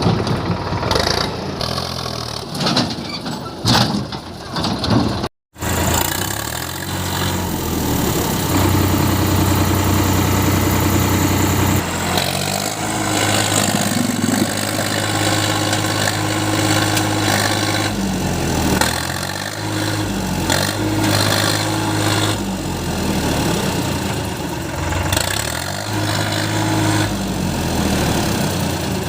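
Heavy diesel engine running, its speed rising and falling every few seconds as the machine works. The sound cuts out completely for a split second about five seconds in, then the engine runs on.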